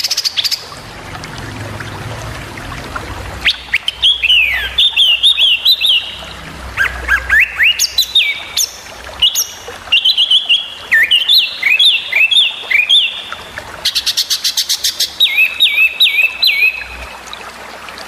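Small songbird singing sharp, rapid 'tembakan' phrases for song training: runs of quick chirps sliding up and down in pitch, with a fast rattling trill about three-quarters of the way through.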